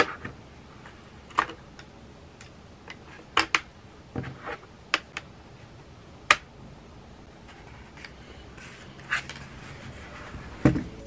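Scattered sharp plastic clicks and taps, about eight or nine, from handling a wireless keyboard's underside and battery compartment cover, with one duller thump about four seconds in.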